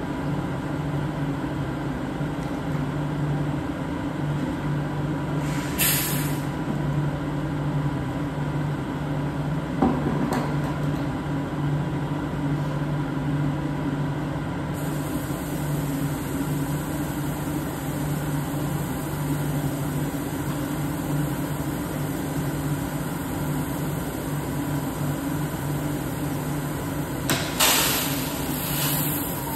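Probat Probatone P12 coffee roaster running with a steady mechanical hum. Two short hissing bursts come about six seconds in and again near the end, with a single knock about ten seconds in.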